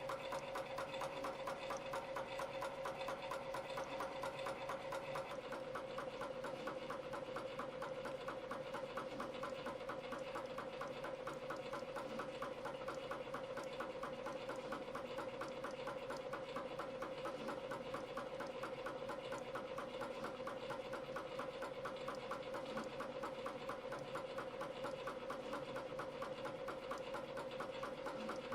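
YHM CF-series CNC spring coiling machine running steadily, forming tiny springs from 0.2 mm wire at about 300 a minute: a fast, even mechanical clatter over a constant hum.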